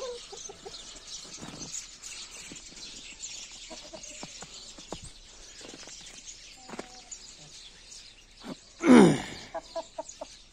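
Chickens in a yard: small birds chirping throughout and a few soft clucks, and about nine seconds in one loud, short squawk from a chicken that falls steeply in pitch, followed by a few short clucks.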